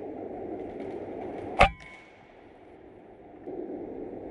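A single shot from an RTI Prophet .22 PCP air rifle, a sharp crack about a second and a half in, followed by a brief metallic ring.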